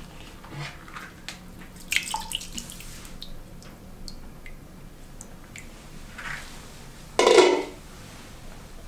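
Water dripping and splashing as the wet glass lid is lifted off a Grainfather's stainless steel kettle full of cleaning solution, with scattered small clicks and taps. A louder clunk comes about seven seconds in.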